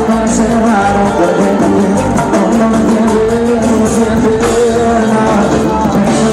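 Live cumbia band playing an instrumental passage: a held melody line over a steady drum and percussion beat.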